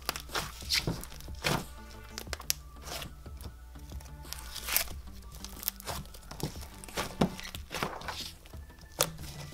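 Fluffy white slime being pressed and squeezed by hand, giving irregular sharp clicks and pops. Soft background music plays underneath.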